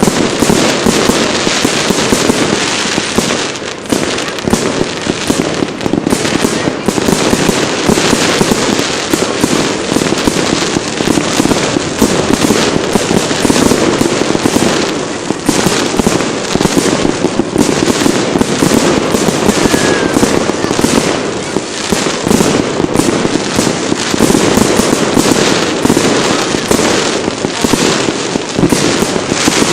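Fireworks display: a dense, unbroken barrage of rapid bangs and crackles, many a second.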